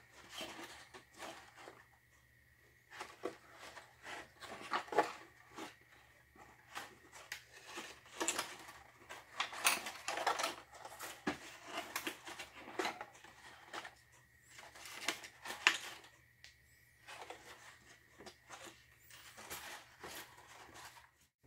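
Hands handling small taped LED lamps and thin wires inside a wooden model roof: irregular rustling, light tapping and small clicks of wood, paper and tape, in clusters.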